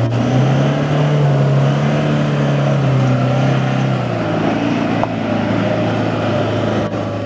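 Toyota Hilux pickup's engine running as it drives through deep mud ruts and passes close by, a steady low note that drops in pitch about four seconds in.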